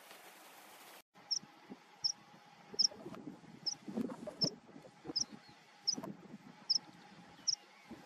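A pipit calling: a short, thin, high call repeated nine times, about one every three-quarters of a second, over low rustling. It starts after about a second of steady hiss.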